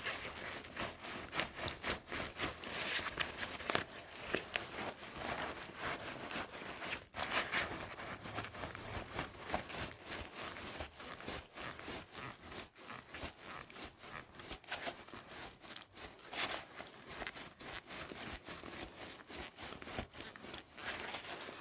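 Osprey Aether 60 backpack frame wire creaking and squeaking over and over as the loaded frame is worked, the wire rubbing where it sits in the pack. The squeak persists even with tape wrapped on the wire's end.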